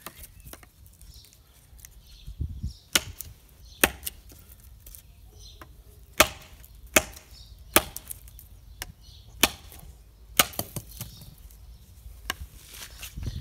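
Taramundi fixed-blade knife chopping into a thin dry branch resting on a log, about nine sharp, irregularly spaced strikes beginning about three seconds in.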